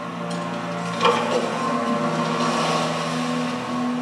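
Soundtrack of a documentary video played through a church sanctuary's speakers: steady low sustained tones that change pitch a couple of times, with a sharp accent about a second in.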